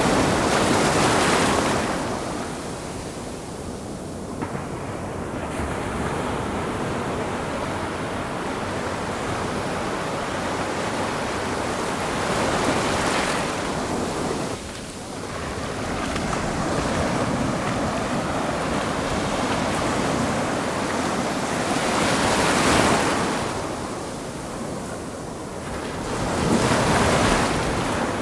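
Ocean surf: waves breaking and washing in as a steady rushing noise, with louder breakers swelling and fading every several seconds.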